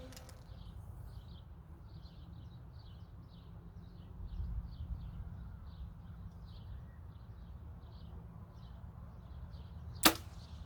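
Compound bow shot: a single sharp crack of the string releasing a field-point arrow near the end. Faint high chirping repeats about twice a second in the background.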